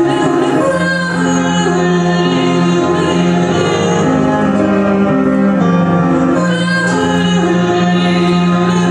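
A woman singing a song, accompanied by a Nord Stage keyboard and a bowed cello holding long low notes.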